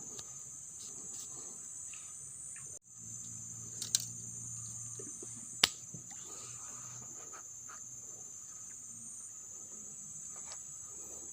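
Steady high-pitched chorus of crickets and other insects. Two sharp clicks cut through it at about four and five and a half seconds in, and the sound drops out for an instant just before three seconds.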